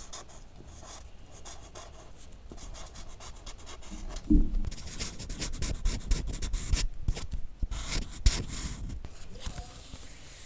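Close-up scratching and rubbing, made up of many fine crackles. A dull thump comes about four seconds in, and the scratching is busiest for the next few seconds.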